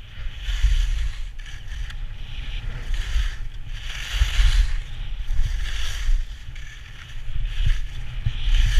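Edges scraping and swishing over hard-packed, bumpy snow on a mogul run, one swish about every second as the rider turns, over a steady low rumble of wind buffeting the microphone.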